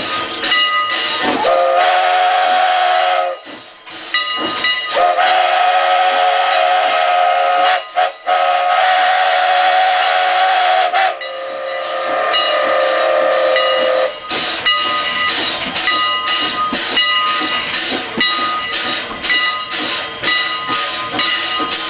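Canadian National No. 89, a 2-6-0 steam locomotive, blowing its steam whistle in three long blasts, the last dropping lower in pitch before it stops. Under and after the whistle comes the steady rhythmic chuff and hiss of its exhaust as it runs.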